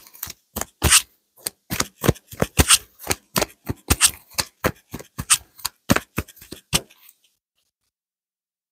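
Tarot cards being shuffled by hand: a quick, uneven run of sharp card clicks, several a second. It stops about seven seconds in and the sound drops out to silence.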